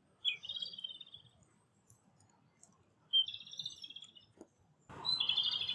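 A wild songbird singing three short, high warbling phrases, each about a second long and a few seconds apart. A rustle comes in under the last phrase.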